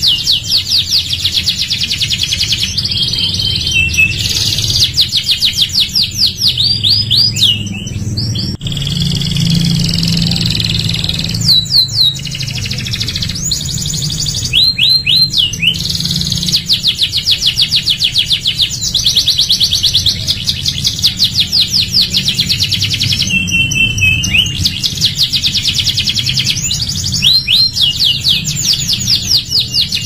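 Domestic canary singing a long song of rapid trills, with runs of fast repeated notes and quick gliding notes broken by brief pauses between phrases. A low steady hum sits beneath the song.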